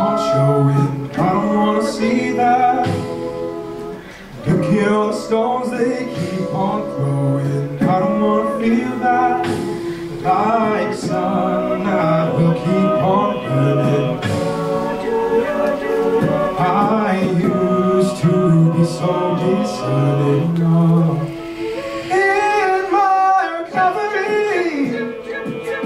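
Mixed male and female a cappella group singing a pop ballad in harmony, with lead and backing voices over a sung bass line. The voices briefly drop back about four seconds in.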